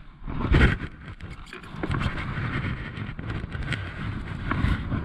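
Wind rumbling on the microphone, with scattered clicks and knocks of tackle against a plastic fishing kayak and one louder thump about half a second in.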